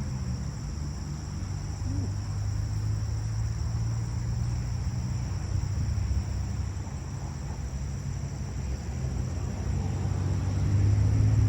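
Steady high-pitched insect drone over a low rumble that grows louder near the end.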